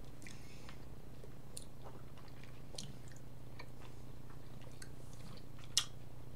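People chewing pieces of Zout salty licorice with closed mouths: faint, soft, sticky mouth clicks scattered irregularly over a low steady hum.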